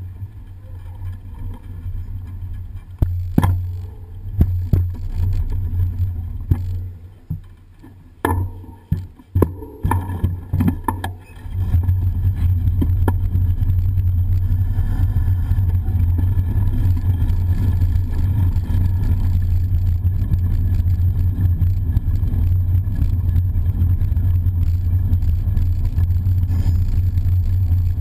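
Bicycle riding noise picked up by a camera on the bike's frame. Scattered knocks and rattles come over the first ten seconds or so. Then, from about twelve seconds in, a steady, louder low rumble sets in as the bike rolls along brick paving.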